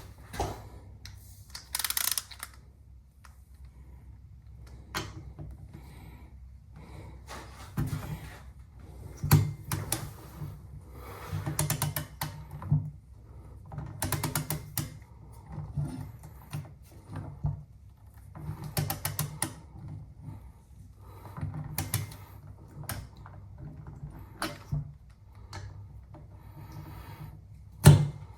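Ratchet wrench clicking in short runs of rapid strokes, pausing between runs, as a rifle part is worked on; a single sharp knock near the end.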